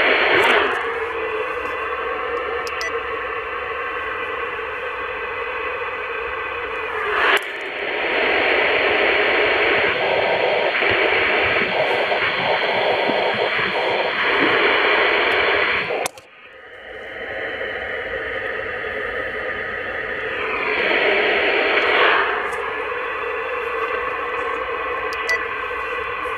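CB radio receiver in upper sideband hissing static through its external speaker, with no station coming through clearly: empty band noise, which the operator puts down to propagation dropping off. The hiss changes abruptly a few times, with a sudden dip about two-thirds of the way through before it swells back.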